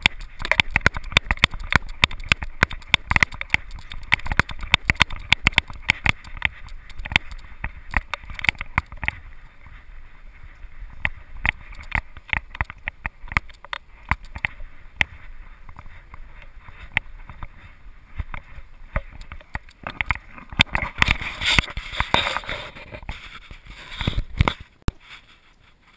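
A GoPro camera on a dog's harness jostling as the dog moves: dense, irregular clicks and knocks of the camera housing and mount, with fur and strap rubbing against it. The knocking thins out after about nine seconds, and a louder spell of rustling comes near the end as hands reach for the camera.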